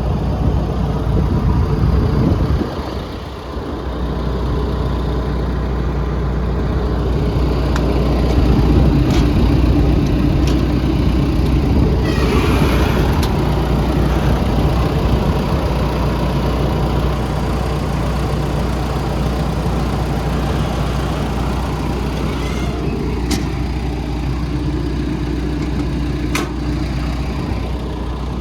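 A John Deere 160D excavator's 4.5-litre diesel engine runs steadily at idle, with a few sharp clicks and knocks from handling on the machine.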